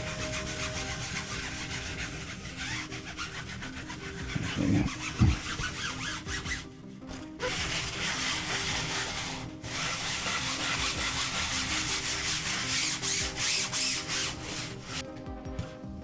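Scraping and rubbing on a 3D-printed plastic part as loose printed strands are cleared away, running on with two short breaks, over background music.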